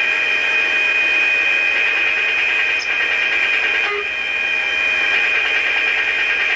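Steady hiss with a constant high-pitched whine on an AH-64 Apache's cockpit intercom audio track.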